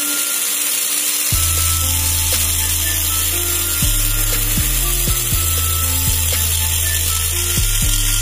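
Background dance music with a heavy bass line that steps from note to note, over a steady raspy buzz.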